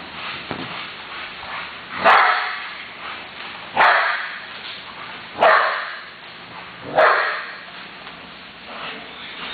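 Young pit-bull-type dog barking four times, loud and sharp, about a second and a half apart.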